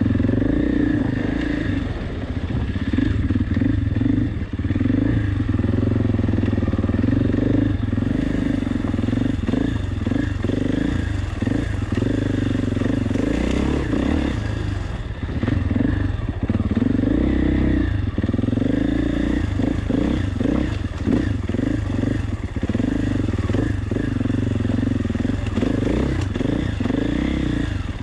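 KTM 450 EXC's single-cylinder four-stroke engine running under constantly changing throttle, its note rising and falling and dipping briefly several times. Frequent clatter and knocks from the bike working over rough off-road ground run through it.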